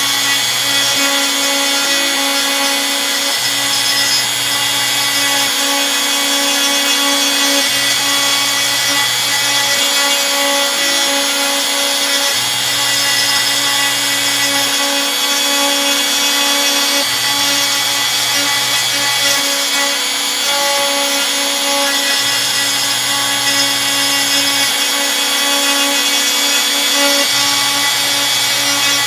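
Bosch Colt palm router spinning a 1/8-inch single-flute end mill on a Probotix X90 CNC router, steadily cutting a pocket in scrap shelving board. A lower hum switches on and off about every five seconds as the machine works.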